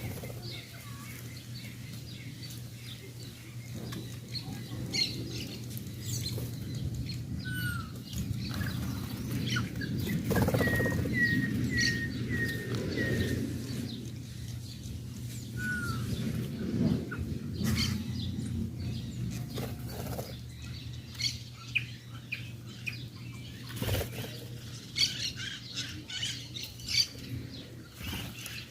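Birds at a feeding spot: wings fluttering and scattered short chirps, with a run of five quick, identical calls near the middle.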